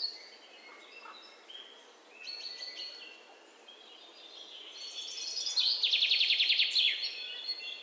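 Birdsong: several birds chirping with short high notes, quiet at first, then louder, with a fast run of repeated notes about five and a half seconds in.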